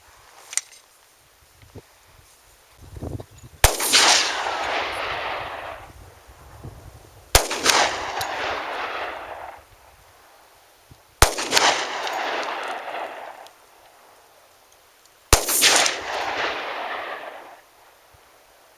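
Four single shots from a Glock 20SF 10mm pistol firing 180 grain jacketed hollow point +P rounds, spaced about four seconds apart. Each report is followed by a rolling echo that fades over about two seconds.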